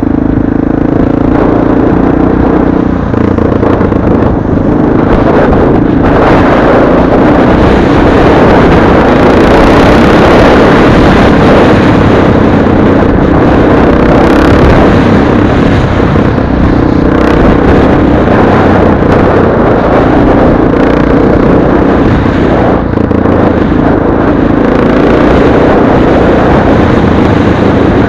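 Motorcycle being ridden at road speed: the engine runs steadily under a loud rush of wind and road noise, with the engine note coming through more clearly near the start and again about two-thirds of the way in.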